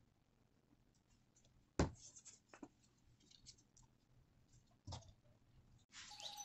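Paper cut-outs being handled and pressed onto a tabletop: a single light knock about two seconds in, a few faint taps just after, and another soft knock near five seconds, with quiet between. Music with bird chirps starts just before the end.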